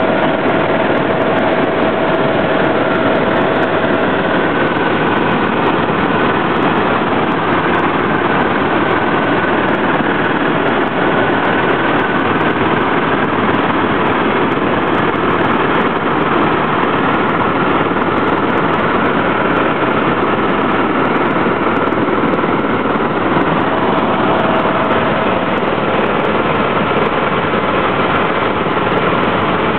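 Helicopter in flight heard from inside the cabin: a loud, steady drone of rotor and engine, with a faint thin whine near the start and again near the end.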